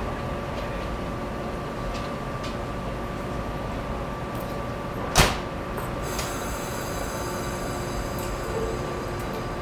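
A 717 series electric train stands at the platform with a steady hum. About five seconds in, a single sharp thump is heard, typical of its doors shutting before departure, and a faint high whine begins just after.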